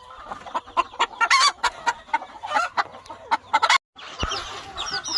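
Gamefowl chickens clucking with many short calls. A brief break comes about four seconds in, followed by higher, falling chirps.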